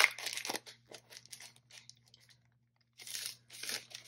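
Clear plastic packaging sleeve crinkling and rustling as a cardboard-backed card is slid out of it: a few rustles at first, then two short bursts about three seconds in.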